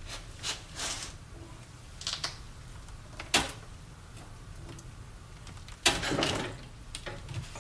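Scattered clicks and creaks from a 3/4-inch drive breaker bar and socket strained under heavy torque (about 700 ft-lb), with a louder cluster of noise about six seconds in.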